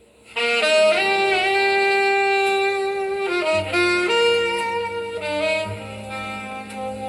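Blues music on a freshly cut lathe record playing back on a turntable, starting about half a second in with a saxophone lead playing long held notes; a low bass line joins about halfway through.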